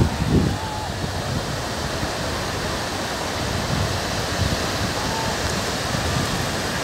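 Sea surf breaking and washing over a shallow sandy beach: a steady, even rush of water noise.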